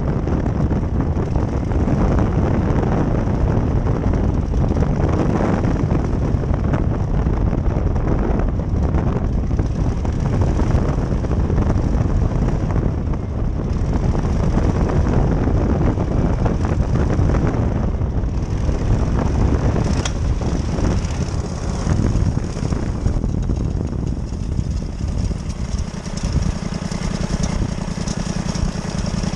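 Powered parachute's engine and propeller running, with wind rushing over the microphone as the craft descends to land. In the last few seconds the wind noise falls away and the engine settles toward idle as the cart rolls on the grass, with one sharp click about two-thirds of the way through.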